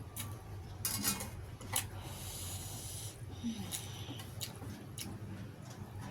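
Close-up eating sounds: chewing and mouth noises with several short, sharp clicks of utensils on a plate, over a steady low hum.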